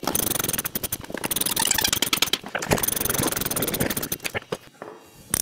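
Socket ratchet wrench clicking rapidly as nuts are run down on anchor bolts to clamp a mud sill. The clicking stops about four and a half seconds in, with one sharp click near the end.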